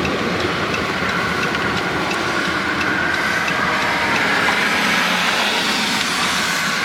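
Steady vehicle rumble and wind noise coming in through an open car window.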